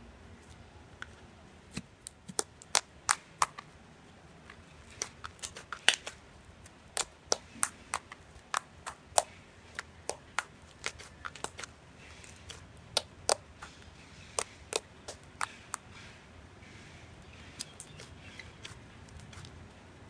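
Slime being poked and squeezed by hand, giving irregular sharp clicking pops at uneven intervals. The pops are densest through the first three quarters and sparser near the end.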